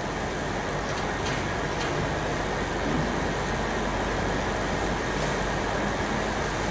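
Steady room noise in a pause without speech: an even hiss with a low hum underneath and a few faint ticks.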